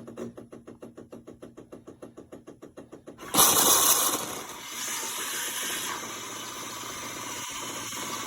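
Miele CM 5310 automatic coffee machine frothing milk. Its pump pulses rapidly, about eight beats a second. A little over three seconds in, a sudden loud hiss starts and settles into a steady hissing whir.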